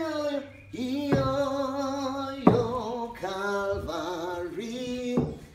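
A man's voice singing unaccompanied in long held notes that slide between pitches. A single sharp hit cuts in about halfway through.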